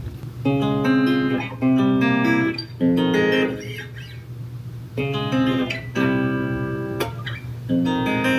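Guitar playing a short melodic phrase of ringing notes, repeated in several bursts with brief pauses between, over a steady low hum.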